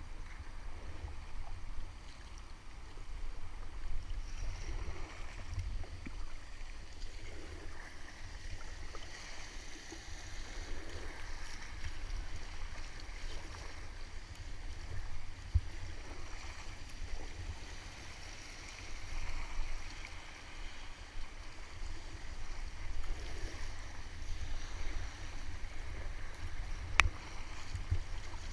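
Inflatable kayak being paddled down a river riffle: the kayak paddle dips and splashes every few seconds over the steady rush of flowing water, with a low rumble underneath. Two sharp taps stand out, one midway and one near the end.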